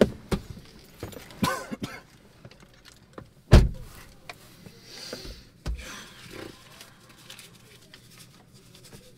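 A car door shutting with a heavy thunk about three and a half seconds in, amid small clicks, knocks and rustling of someone settling into the driver's seat, with a couple of lighter thuds soon after.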